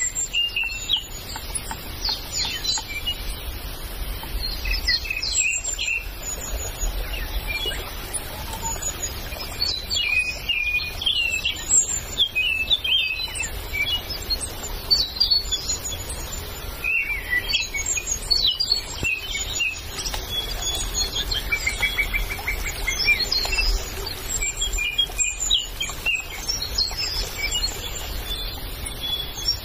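Several forest birds calling and chirping, overlapping short chirps, whistles and a quick trill a little past the middle, over a low steady rumble.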